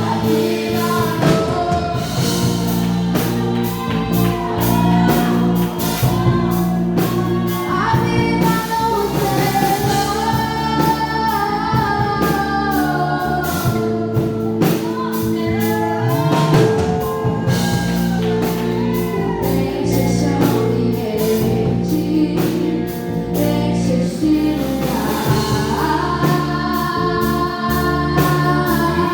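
Live gospel worship music: singing over sustained keyboard chords, with drums and guitar.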